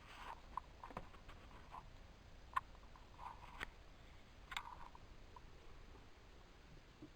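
A few faint, scattered clicks and soft taps, with one sharper click about two and a half seconds in and two more about a second apart after it.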